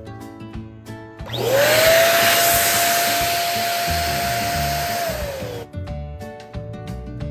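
Electric balloon pump motor spinning up about a second in, blowing air with a steady whine for about four seconds, then winding down. Upbeat background music runs throughout.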